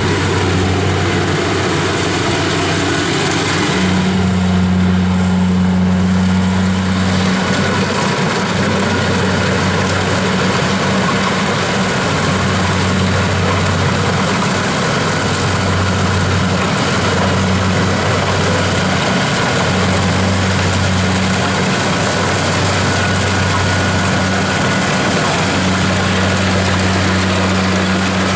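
Kubota DC-70 combine harvester running steadily: a constant diesel engine note under the dense drone of its machinery, with the low note dipping briefly every few seconds.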